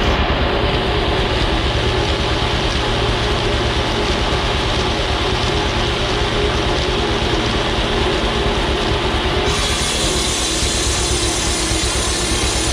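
Clapboard mill running: the circular saw cuts clapboards off a turning log over the steady drive engine, with a constant machine clatter. About three-quarters of the way through the sound turns brighter and hissier.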